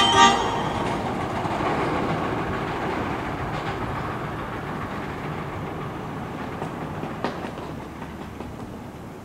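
Hankyu electric train running through the station without stopping, its rumble fading steadily as it moves away, with a few sharp clicks from the rails.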